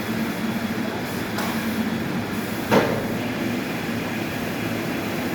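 Heavy sawmill machinery running steadily, with a faint knock about a second and a half in and a sharp, louder knock near the middle.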